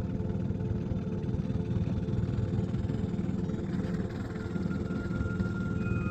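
Background music: a low steady drone, with long held higher notes coming in about four seconds in.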